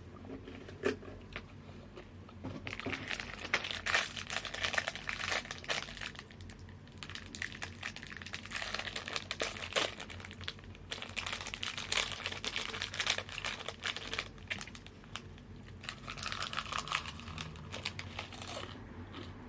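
Plastic snack-chip bag crinkling in repeated bursts as it is handled, with short pauses between.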